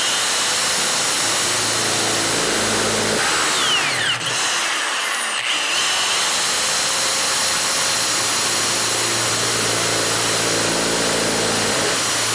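Corded 120-volt electric drill running steadily as its bit bores into the metal lock cylinder of a coin-op vending machine, the motor's pitch dipping briefly about four seconds in.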